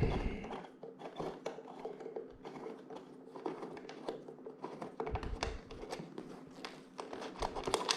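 Light, irregular metallic clicks and taps of a hand tool undoing the motorcycle seat bolts, over a steady low hum.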